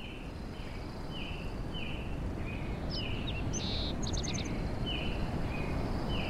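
Birds calling outdoors: one bird repeats a short falling call about every half second, with a few higher chirps and a quick trill in the middle, over a steady low rustling noise that slowly swells.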